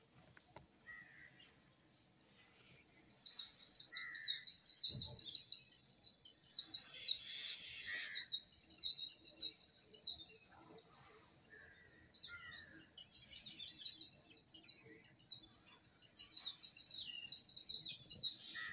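Small birds chirping: a dense run of rapid, high chirps that starts about three seconds in, with a short lull around ten seconds.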